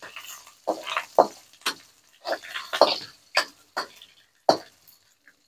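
Metal ladle scraping and knocking against a metal wok while stirring dried anchovies frying in oil: about nine short strokes at an uneven pace.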